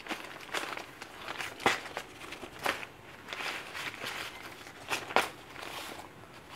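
Thin plastic courier mailer crinkling and a card folder rustling as they are handled by hand, with a few louder sharp crackles scattered through.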